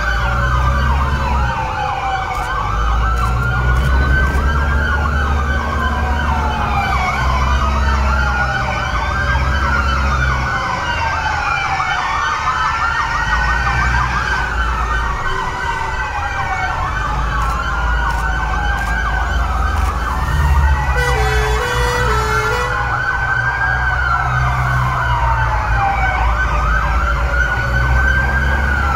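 Several fire engine sirens wailing at once, their slow rising-and-falling wails overlapping out of step, over the rumble of idling diesel engines. A brief two-note tone sounds about two-thirds of the way through.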